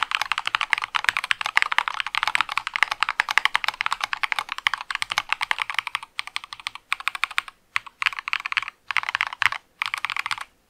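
Typing on a mechanical keyboard fitted with lubed Durock POM linear switches, in an acrylic case with SA-profile keycaps. Fast, even keystrokes for the first six seconds or so, then short runs of typing broken by brief pauses.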